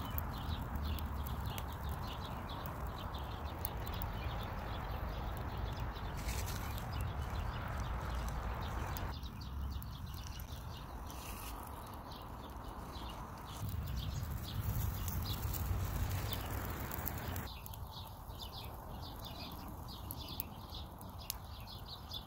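Wood fire of small sticks crackling and popping irregularly, over a low rumble.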